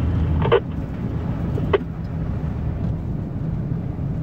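Steady low rumble of a Ford F350 pickup driving in four-wheel drive through snow, heard from inside the cab. A louder low hum cuts off about half a second in, and there are two short clicks, one then and one near two seconds.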